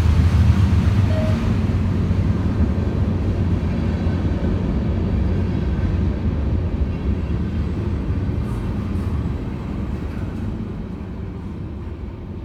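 Freight train's cars rolling along the track: a steady low rumble of wheels on rail that slowly fades as the train draws away.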